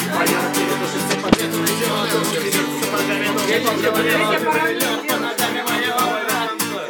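Acoustic guitar strummed in a steady rhythm, with a voice singing along faintly. One sharp knock sounds about a second and a half in.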